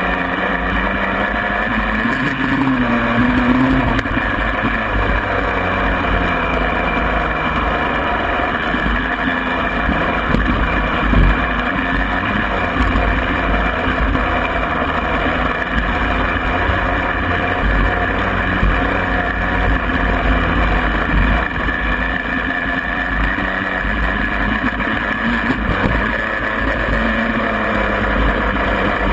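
Small off-road motorcycle engine running steadily on the move, its pitch rising and falling a little a few seconds in and again near the end, with wind rumbling on the microphone.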